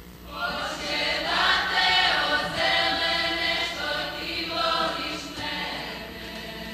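A group of voices singing a folk song together in choir-like unison. The singing starts about half a second in and fades near the end.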